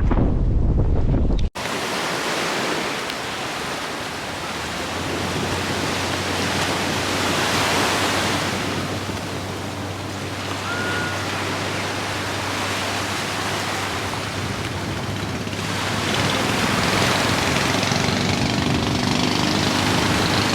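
Wind blowing on the microphone and sea water rushing past a small boat on the move, over a steady low hum. A louder low rumble cuts off abruptly about a second and a half in.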